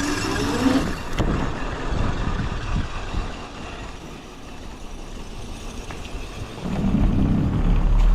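Wolf electric scooter being ridden: a motor whine rising in pitch in the first second, then a steady running noise. From about two-thirds of the way in, a loud low wind rumble builds on the microphone.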